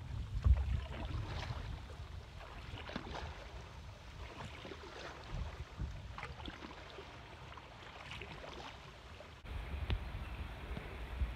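Paddle strokes from a stand-up paddleboard, each dip into the river a short splash about every second and a half, over a low wind rumble on the microphone.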